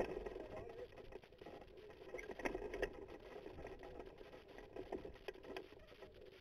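Wind rushing over a microphone mounted on a moving hang glider during a running launch, with a few sharp knocks from the glider frame or the pilot's strides.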